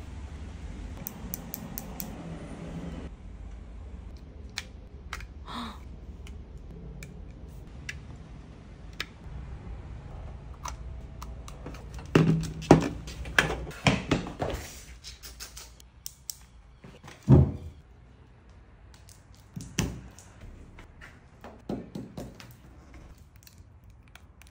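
Clicks, taps and knocks of small plastic parts and a clear plastic clamshell being handled on a tabletop. A cluster of louder knocks comes about halfway through, and one more sharp knock follows a few seconds later.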